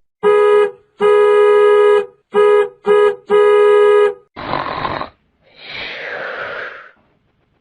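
A buzzy horn-like tone blasts five times in a short, long, short, short, long pattern. Two noisy, hissing sounds follow, the second longer and falling in pitch.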